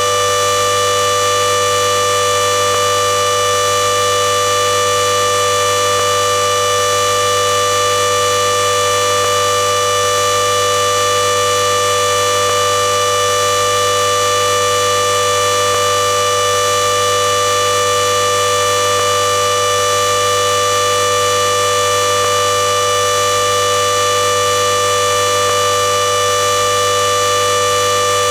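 Klexen DS8 washing machine at top spin speed, a loud steady whine made of several held tones, the strongest a high one, over a low hum, with no change in pitch or level.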